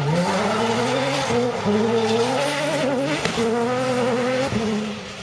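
Rally car's engine revving hard as it accelerates along the stage, its pitch climbing with a few brief dips, then dropping off about four and a half seconds in.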